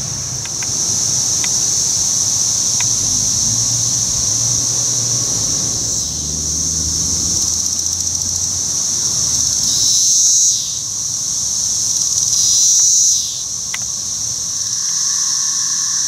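Chorus of periodical cicadas (Magicicada, Brood XXIII): a steady high-pitched drone that swells louder twice, about two-thirds of the way through and again a couple of seconds later.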